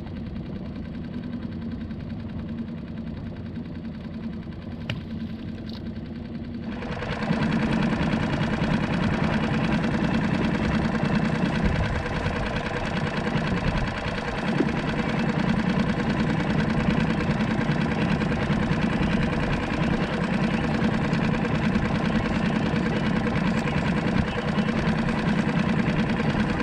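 Small skiff's outboard motor running steadily at slow trolling speed, a continuous hum. About seven seconds in it becomes abruptly louder and fuller, then carries on unchanged.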